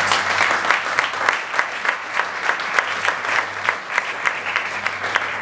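Audience applauding: many hands clapping together, dense at first and thinning into more separate claps near the end.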